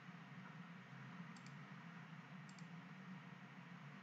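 Faint computer mouse clicks, two quick double ticks about a second apart, over a low steady background hum.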